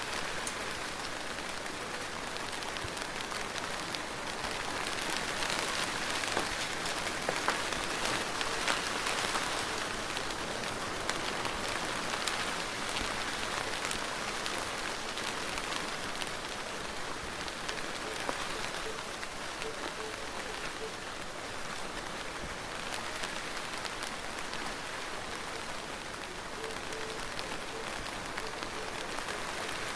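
Steady rain falling: a dense even hiss of drops with fine individual drop ticks. It grows a little heavier for several seconds early in the stretch, then settles back.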